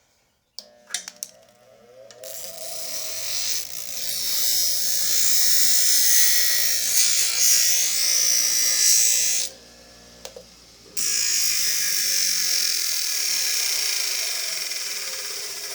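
A few clicks, then a small welder buzzing with a loud hiss as it welds a highlighter. It cuts out for about a second and a half a little past the middle, then starts again.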